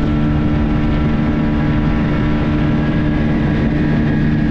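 Speedboat engine running steadily under way: an even drone with a noisy rush over it.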